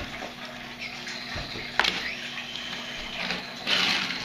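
Small toy car pushed by hand across a wooden floor, its wheels rolling with a rushing noise. There is a sharp click about two seconds in and a louder burst of rolling noise near the end.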